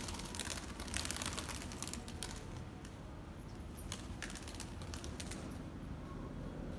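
Domestic pigeons' wings clapping and flapping as they are tossed up and take off: bursts of quick sharp claps in the first two seconds and again about four seconds in, over a low steady rumble.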